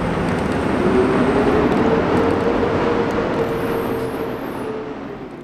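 Subway train of R42 cars and a converted R30 rail adhesion car running on elevated tracks: a steady rumble with a steady whine over it, fading away near the end.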